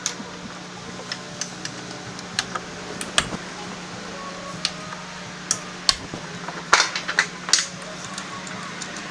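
Hand tools clinking and tapping on metal, a dozen or so short separate clinks with a cluster near the end, over a steady low hum.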